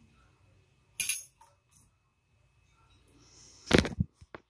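Metal parts of a Penn Slammer III 10500 spinning reel being handled: one sharp metallic clink about a second in, then a short whirr and a quick cluster of knocks near the end.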